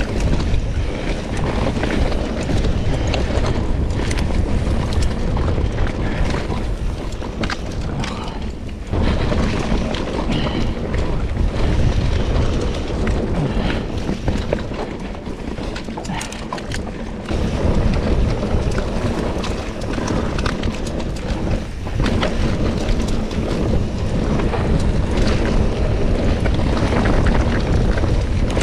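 Wind buffeting a GoPro's microphone on a fast mountain-bike descent, over the rumble of knobbly tyres on dirt and rocks and the rattle and clack of the bike taking bumps. It eases briefly twice, around a third and a half of the way through.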